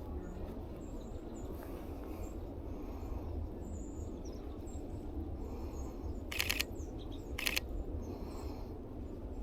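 Two quick bursts of camera shutter clicks from a Sony a7R V, about a second apart, over steady low background noise. Faint high bird chirps come and go.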